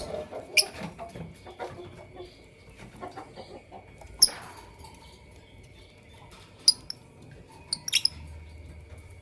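Lovebirds giving short, shrill chirps, a few scattered single calls with the loudest about four seconds in and a quick cluster near the end.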